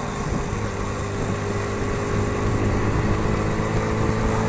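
Honda Super Cub 50's small single-cylinder four-stroke engine running at a steady pace while riding, with wind rushing over the helmet microphone.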